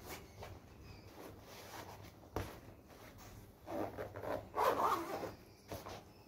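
A zipper on a soft black case is pulled open in two quick runs about four and five seconds in. A single sharp knock comes a little before halfway.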